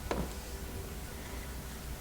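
Steady low room hum, with one short squeak falling in pitch just after the start.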